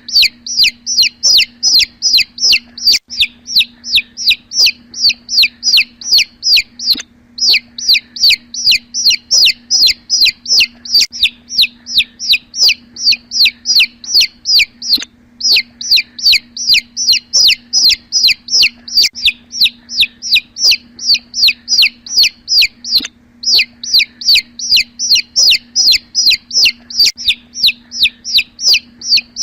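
Domestic chick peeping loudly and insistently, about three high peeps a second, each falling in pitch, in long runs broken by brief pauses. A faint low hum lies underneath.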